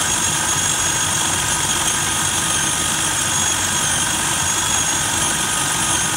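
Electric food processor running at a steady speed, its blade chopping slices of bread into crumbs. A constant motor whine sits over the churning.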